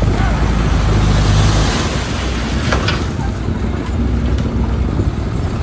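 Heavy diesel engine of earthmoving machinery running under load, swelling about a second in, with a single sharp knock near the middle.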